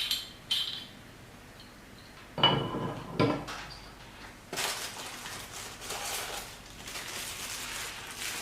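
Microscope parts and packaging being handled: a few sharp knocks and clinks as hard pieces are picked up and set down, then a stretch of rustling from about halfway through.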